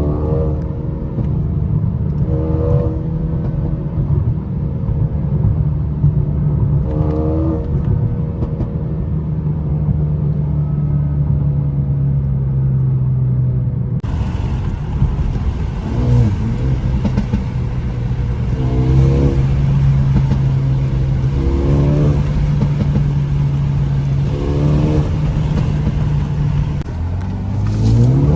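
Mercedes-AMG A35's turbocharged four-cylinder engine on its stock exhaust, driving with a steady drone while the revs climb briefly again and again, several times. The exhaust is quiet, with no clear pops or crackles standing out.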